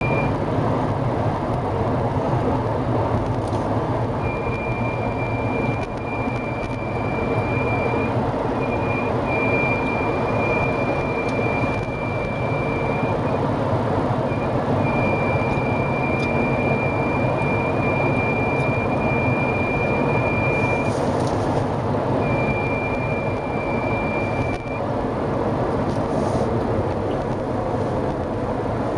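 High, steady squeaking whistle in a 2015 Mercedes-Benz B-Class, heard inside the car over steady road and engine noise while driving at speed. It comes and goes in stretches of a few seconds at a time. This is a fault that sets in from about 70 km/h.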